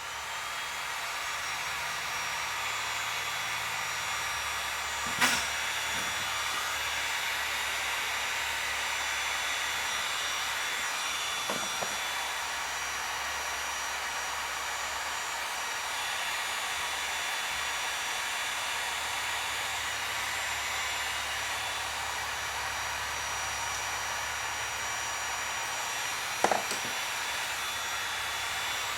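Heat gun blowing steadily, a hiss with a faint high fan whine, heating an aftermarket plastic wheel flare so it can be bent to the body. Three light knocks come at intervals, the last near the end.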